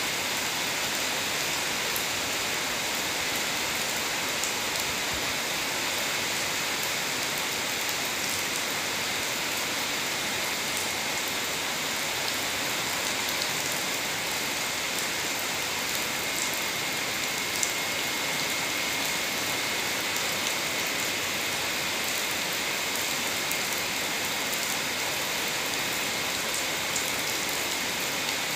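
Steady rain falling on wet pavement and foliage, an even hiss with scattered drop ticks.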